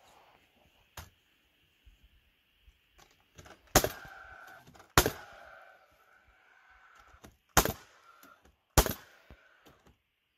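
Nails being driven into wooden floor boards: a faint strike, then four sharp, loud strikes in two pairs about a second apart, each leaving a short ring in the boards.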